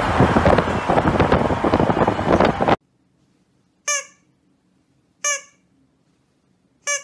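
Loud wind and road noise from a moving pickup truck, heard at an open window. It cuts off suddenly and is followed by three short, high squeaks about a second and a half apart, each dipping slightly in pitch, from a plush squeaky dinosaur toy.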